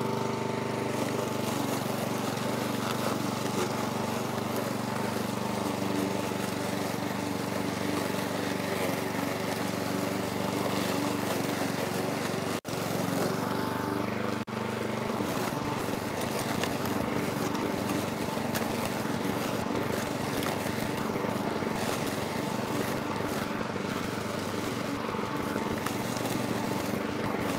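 Parkside PBM 132 B1 petrol lawn mower's 132 cc four-stroke engine running steadily under load while mowing grass about 20 cm tall, working without trouble. The sound breaks off for two brief moments about halfway through.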